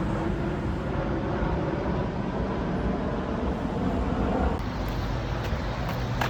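Steady low rumbling background noise, without clear separate events.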